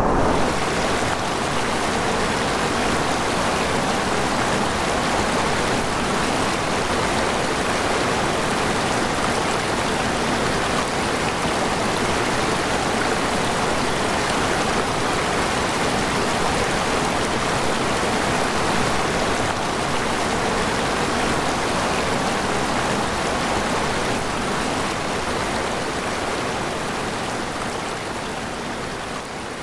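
Snowmelt mountain stream running over rocks: a steady hiss of flowing water that fades out near the end.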